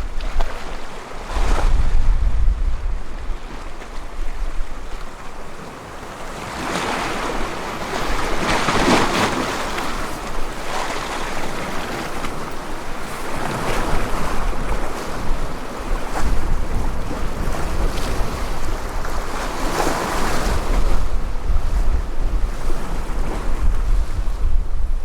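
Sea waves washing against the shore, swelling strongly about a third of the way in and again later, with wind buffeting the microphone at the start and near the end.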